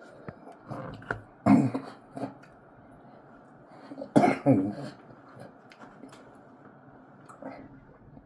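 A person coughs and clears their throat twice: once about a second and a half in, and again, louder, about four seconds in.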